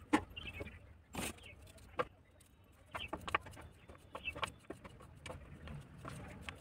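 Scattered sharp clicks and taps as boiled potatoes are cut with a small knife over a steel plate, the loudest just after the start and about a second in. Short high bird chirps come in between.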